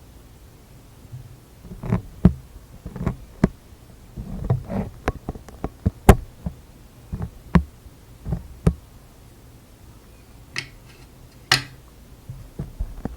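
Close-miked ASMR trigger sounds: hands tapping and handling things right at the microphone, giving irregular soft thuds and sharp clicks. The sharpest click comes about halfway through, and two brief crackly rustles come near the end.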